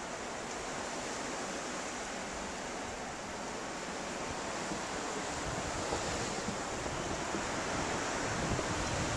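Blizzard wind blowing, a steady rushing noise that grows a little louder in the second half, with gusts buffeting the microphone near the end.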